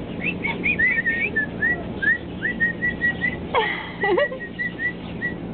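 Small caged pet birds chirping: a steady run of short, high chirps, about two or three a second, with a couple of louder calls sweeping down in pitch a little past halfway.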